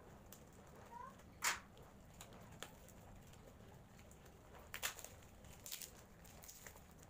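A plastic-wrapped parcel being cut open with scissors and pulled apart by hand: a few sharp snips and crinkles of the wrapping, the loudest about one and a half seconds in, with small clusters near five and six seconds. Faint bird chirps in the background.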